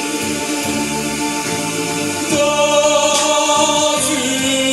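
A man singing a slow gospel hymn over sustained electronic keyboard chords, the notes held long and the chord changing twice.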